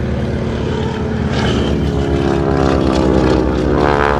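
A propeller aircraft's piston engine running, growing somewhat louder toward the end as the aircraft displays.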